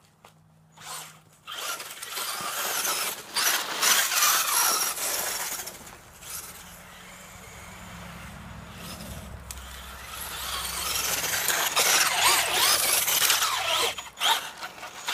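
Radio-controlled off-road buggy driving, its motor whining and gliding up and down in pitch with the throttle, with tyre noise over snow and pavement. Two loud runs, with a quieter stretch in the middle.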